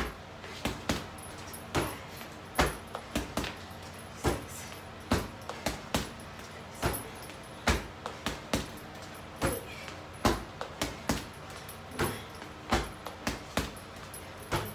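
Kicks and boxing-gloved punches landing on an Everlast heavy punching bag: a string of sharp thuds, irregular at about two a second, often in quick pairs or triples.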